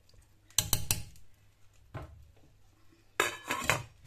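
Metal spoon knocking against a steel cooking pot, a quick run of clinks about half a second in and one more near two seconds, then the pot's metal lid clattering into place near the end.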